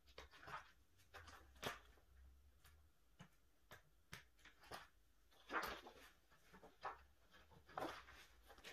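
Faint rustling and crinkling of a clear plastic card sleeve being handled and slid onto the open metal rings of a three-ring binder, with scattered soft clicks and taps. Louder crinkles come about a second and a half in, about halfway through and near the end.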